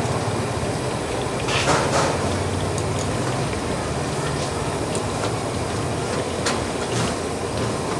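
Battered bananas deep-frying in a wide wok of hot oil, a steady sizzle, with metal tongs clinking against the wok a few times.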